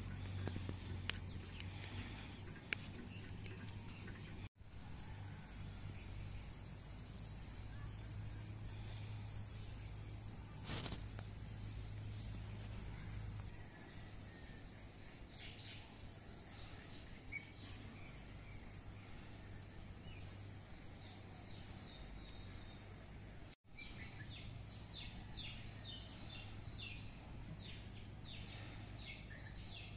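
Outdoor countryside ambience: birds calling, one repeating a short high chirp about twice a second, over a faint steady hum and insect noise. The sound drops out briefly twice.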